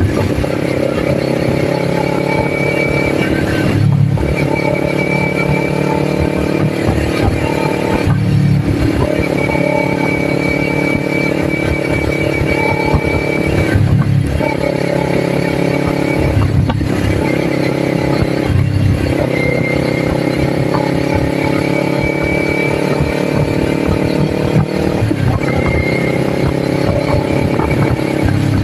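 Kawasaki Ninja 400's parallel-twin engine running under way at road speed. It has a steady note, broken about five times by brief dips where the throttle is closed and then opened again.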